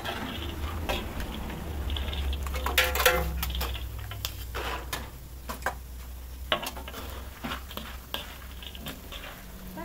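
Kitchen utensils clinking, knocking and scraping against pots and pans, over a steady low hum.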